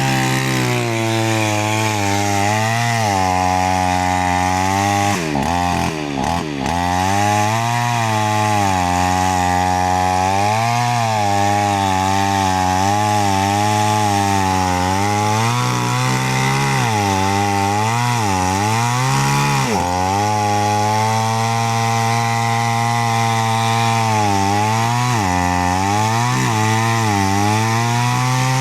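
New West 568 two-stroke chainsaw running at high revs while cutting through kapok wood. Its pitch sags and recovers again and again as the chain bites and loads the engine, with one deeper dip about six seconds in.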